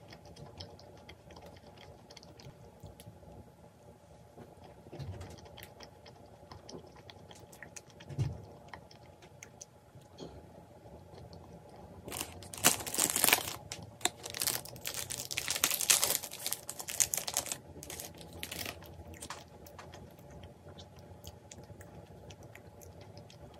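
Chewing a crunchy croquant choux pastry, with small crunches, then, about halfway through, loud crinkling and tearing of a plastic pastry wrapper being opened for several seconds.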